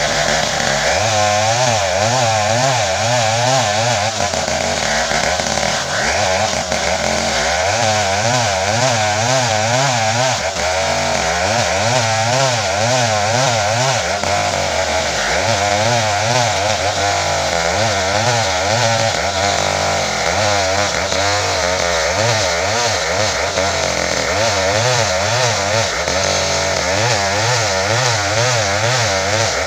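Home-assembled 070 two-stroke chainsaw running hard without a break, its engine pitch wavering up and down as it works through ironwood.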